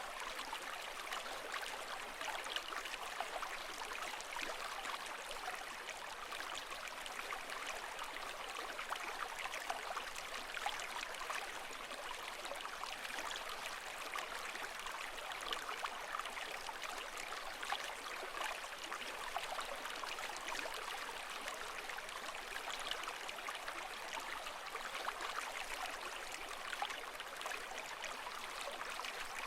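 Steady rushing water with a fine trickling, bubbling texture and no rise and fall of waves.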